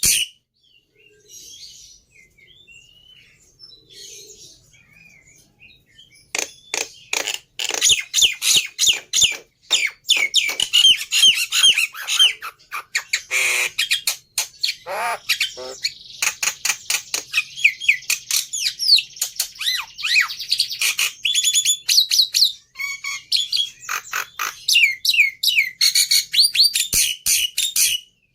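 Black-winged starling (jalak putih) singing a lure song. A few faint, scattered calls are followed, about six seconds in, by a long dense run of rapid clicks, chatter and sharp whistled notes sliding up and down.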